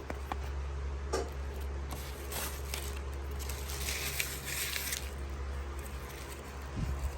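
Rustling and a few light clicks as packaging and a wallet are handled, over a steady low hum.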